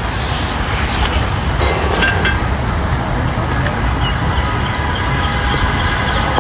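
Wind buffeting the phone's microphone outdoors: a steady, uneven low rumble with a fainter hiss above it.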